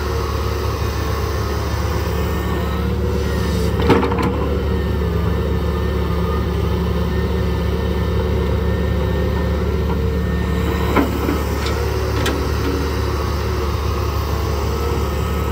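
Hydraulic excavator's diesel engine running steadily with a low drone, with a sharp knock about 4 seconds in and another about 11 seconds in.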